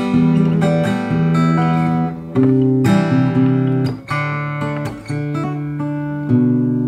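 Steel-string acoustic guitar strung with D'Addario EZ890 strings, playing a chord progression with a new chord about once a second; the last chord, struck near the end, is left ringing.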